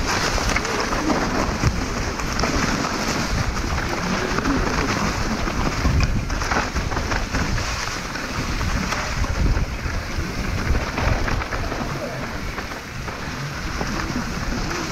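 Mountain bike rolling fast down a rough dirt and rock trail: steady heavy rumble of the tyres on the ground, with frequent knocks and clatters as the bike hits stones, and wind buffeting the microphone.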